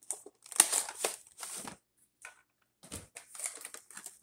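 Cardboard box and plastic packaging rustling and scraping as a miniature toy playset's contents are pulled out of the box. It comes in short bursts with a brief pause midway and a soft knock about three seconds in.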